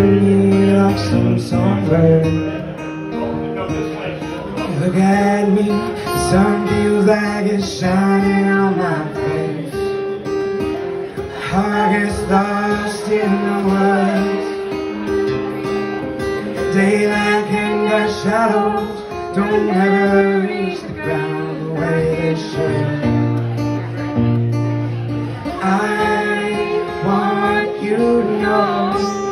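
Live acoustic guitar accompanying a woman singing, her sung lines coming in phrases with guitar-only gaps between them.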